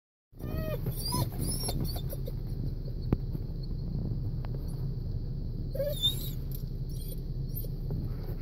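Chesapeake Bay Retriever whimpering: several short, high, falling whines in the first second or so and another about six seconds in, over a steady low rumble.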